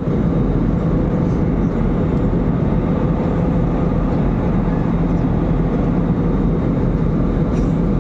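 Steady cabin noise of an airliner in flight: an even engine and airflow rumble with a constant low hum.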